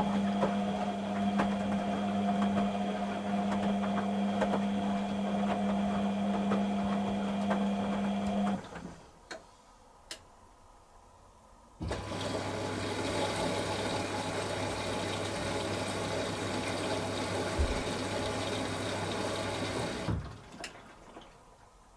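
Beko WTG620M1 washing machine running: a steady electrical hum with water noise for about eight and a half seconds. This stops, a couple of clicks follow, and a second spell of hum and rushing water runs for about eight seconds before cutting off.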